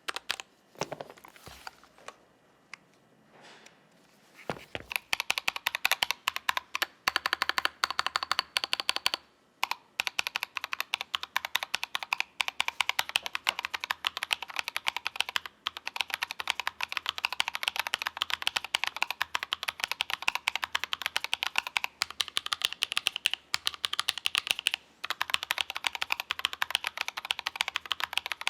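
Fast, continuous typing on a Melgeek Mojopad keyboard with an aluminium plate, fitted with Gazzew Boba U4T tactile switches lubed with Krytox 205g0: a dense run of key clacks. It starts about four to five seconds in, after a few scattered clicks and a short pause.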